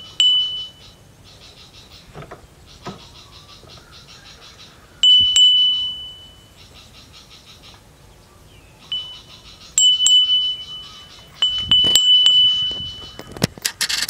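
Small high-pitched bell struck repeatedly, each strike a sharp ding that rings on as one clear high tone for a second or more; the strikes come a few seconds apart at first and closer together near the end.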